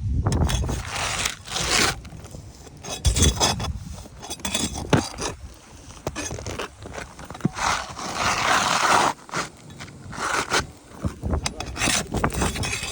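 Irregular scraping and rubbing of an asphalt shingle being slid and worked into place on a roof, with a few sharp clicks.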